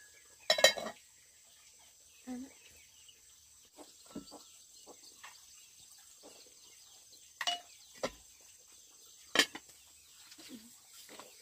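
A few scattered sharp clicks and knocks, the loudest about half a second in and two more near the end, over a faint steady high chirring of insects.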